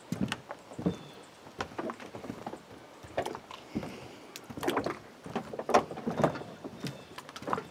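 Footsteps on wooden dock boards: a run of irregular knocks and thumps, a few a second.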